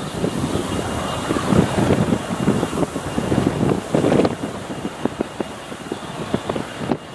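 Military helicopter hovering low, its rotor chopping in a steady pulsing beat over the turbine noise, with wind buffeting the microphone.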